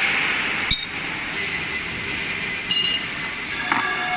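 Steel spanners knocking and clinking against the bolts and roller assembly of a ring die pellet mill. A sharp knock comes under a second in, then two ringing metal clinks about a second apart in the second half.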